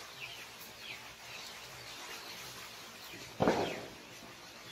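Short, falling bird chirps repeating in the background, with a single dull thump about three and a half seconds in that is the loudest sound.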